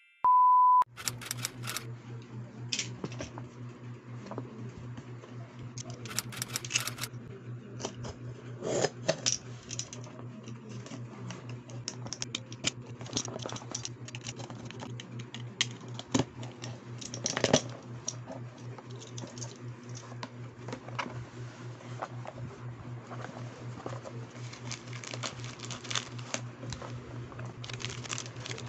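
A short high test-tone beep, then hands opening a cardboard shipping box and handling plastic cosmetic sample sachets: irregular scratches, taps, tape and cardboard rustling and crinkling. Underneath runs a steady rain-patter sound track with a low hum.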